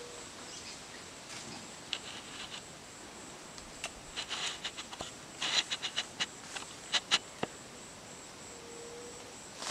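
Faint footsteps crunching through dry leaf litter, with a cluster of crackles about five to seven seconds in, over a steady high-pitched insect hum.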